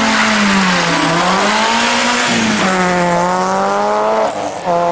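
Citroën Saxo rally car's engine accelerating hard, its note rising and falling, dropping sharply at a gear change about halfway through, then climbing again.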